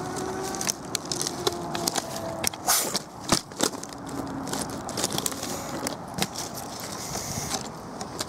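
Dry sticks and leaf litter crackling and scraping in irregular clicks, with a cluster of sharper snaps about three seconds in, over a faint steady hum.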